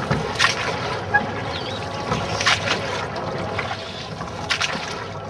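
Water splashing and lapping around a wooden rowboat as it is rowed with oars, with a sharper splash about every two seconds over a steady wash of water noise.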